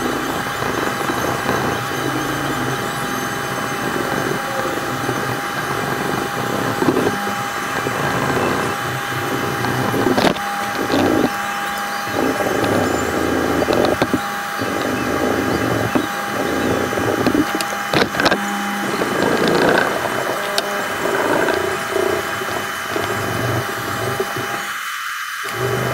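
Hand sanding on a wooden knife handle: abrasive paper rubbed back and forth in uneven strokes, over a steady background hum.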